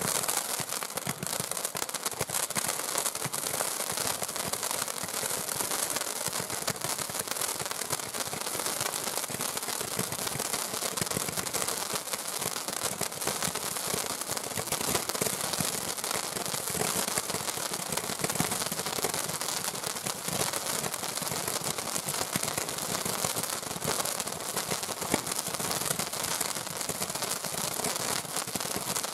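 Fireworks batteries (cakes) firing fanned volleys of stars in quick succession: a steady dense crackle and hiss packed with rapid small pops.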